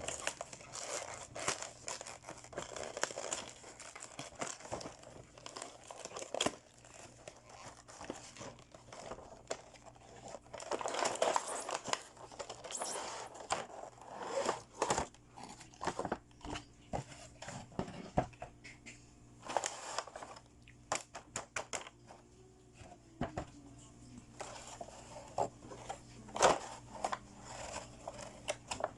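Plastic packaging crinkling and tearing as a toy set is unboxed, in irregular bursts with sharp small clicks and taps between them.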